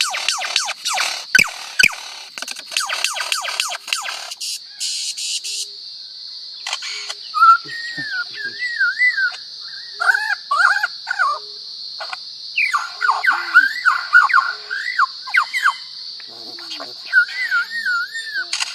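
A bird gives a rapid machine-gun-like rattle of clicks for about four seconds, then a series of warbling whistled phrases that rise and fall, over a steady high hiss.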